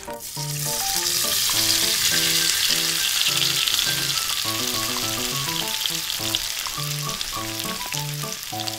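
Breaded chicken drumsticks deep-frying in hot oil in a small wok: a dense sizzle that swells within the first second as the pieces go in, then holds steady while they are turned with tongs. A simple background melody runs underneath.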